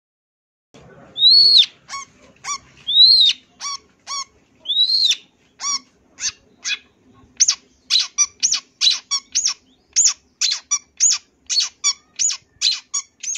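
Long-tailed shrike (cendet) singing. After about a second of quiet it gives three drawn-out whistles that rise and fall, with short sharp notes between them. From about halfway in comes a quick run of sharp, clipped notes, about three a second.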